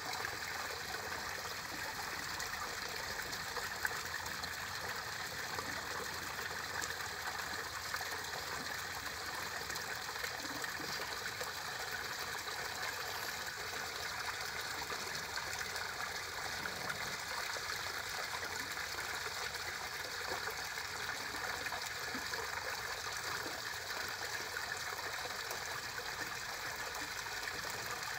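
Water of a garden pond's small waterfall trickling and splashing steadily into the pond.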